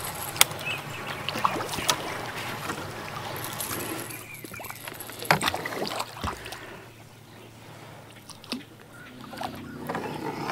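Water sloshing against a small fishing boat's hull, with a few scattered sharp knocks and clicks; it quietens about two thirds of the way through.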